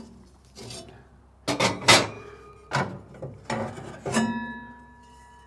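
Metal cooking grates and heat diffuser plate being lifted out inside a pellet grill's steel cook chamber: a run of metal clanks and scrapes, the last strike leaving a ringing tone that carries on near the end.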